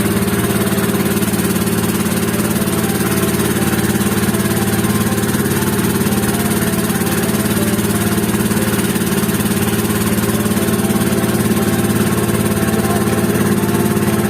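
Engine of a motorized bangka (outrigger passenger boat) running steadily at an even pitch while under way on the lake.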